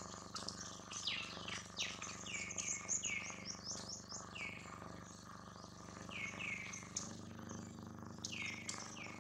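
Bird chirping: short, high notes that sweep downward, repeated in quick clusters, over a faint steady hum.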